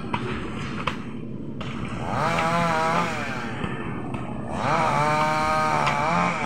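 A small engine running with a steady low hum, revved up and back down twice. A couple of sharp knocks sound in the first second.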